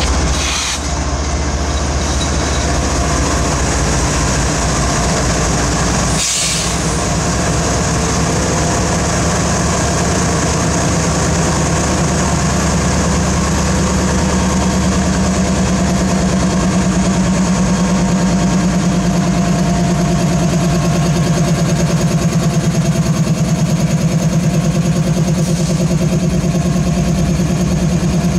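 Diesel locomotive engine running with a steady low throb that grows louder from about six seconds in, with a brief burst of noise about six seconds in.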